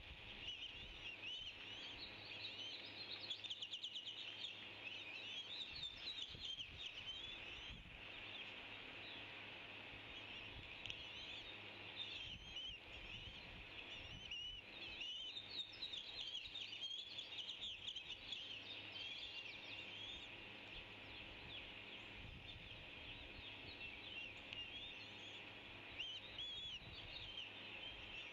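Many short, high-pitched bird chirps repeating quickly and overlapping, over a steady hiss.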